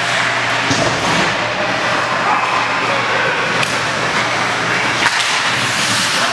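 Ice hockey play in a rink: a steady noisy din of skates on the ice and sticks in play, with a few sharp knocks, the clearest about five seconds in.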